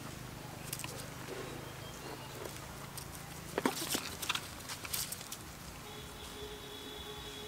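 Troop of long-tailed macaques crowding over food: a few short, sharp sounds bunched together about halfway through, over a low steady hum, with a thin high steady tone joining near the end.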